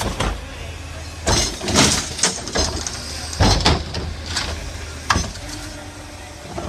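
Garbage truck with a Curotto-Can attachment running with a steady low hum, while a series of sharp clanks and knocks come from the grabber arms and the plastic wheeled cart.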